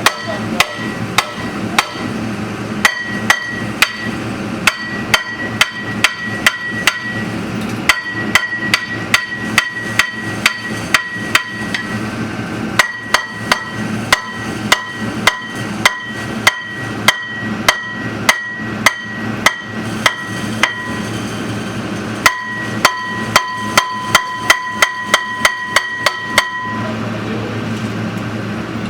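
A hammer striking metal in steady blows of about two a second, each blow ringing. The blows come in several runs with short pauses and stop shortly before the end.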